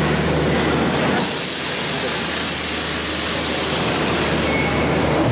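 Cable car machinery running with a steady low hum. A loud hiss comes in about a second in and holds.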